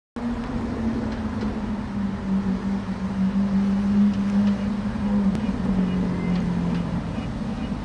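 BMW M850i's twin-turbo V8 running at low speed as the coupe turns through an intersection: a steady low drone that drops slightly in pitch about five and a half seconds in.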